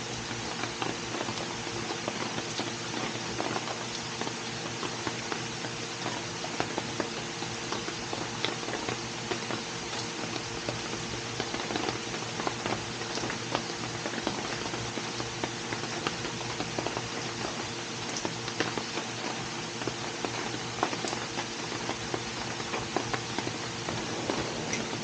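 Rain falling steadily: a dense patter of many small drops, with a steady hum underneath.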